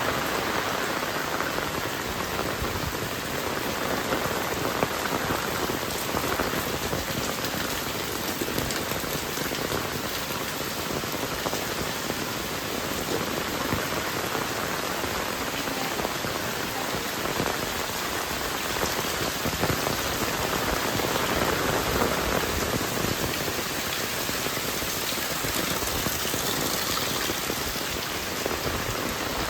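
Heavy rain falling steadily, a dense even patter of drops hitting surfaces.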